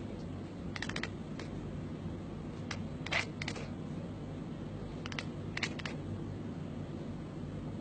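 Domestic cat making short, quick fluttering clicks in small clusters every second or two, a sound like birds' wings flapping.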